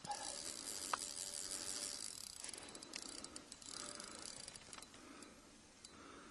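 Fishing reel clicking rapidly and faintly, a fast run of fine ticks with a few sharper clicks, as a hooked muskie pulls on the line.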